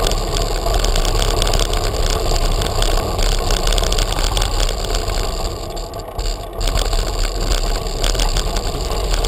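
A bicycle rolling over cobblestones, heard as a steady rumble and rattle of vibration shaking the mounted camera. It eases briefly about six seconds in.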